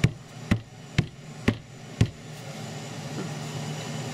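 Wooden loaf soap mold knocked against the tabletop five times, about twice a second, then it stops: tapping the mold to settle the freshly poured layer of soap batter.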